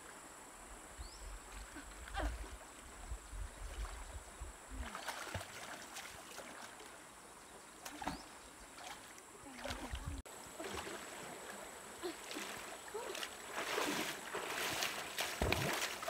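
A person wading through a shallow river, legs swishing and splashing through the water, growing louder and busier near the end as she steps quickly out onto the bank.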